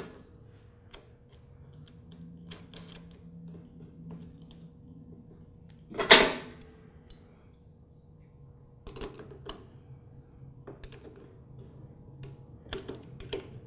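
Scattered small metal clicks and taps as the negative cable is bolted onto a lawn tractor battery terminal. One louder metal clatter comes about six seconds in as a wrench is picked up from among the tools, and quick runs of clicks follow near the end.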